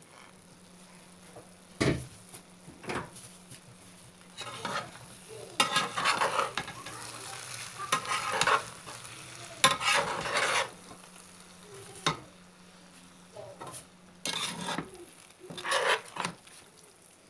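Spatula stirring and scraping through cooked biryani rice and potato masala in a non-stick pan, in several bursts, after two sharp knocks a few seconds in. A faint steady low hum runs underneath in the pauses.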